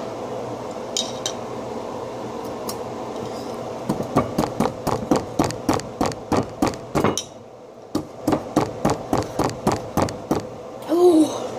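A metal spoon knocking hard against a block of ice, with sharp strikes about three to four a second and a short pause a little past the middle.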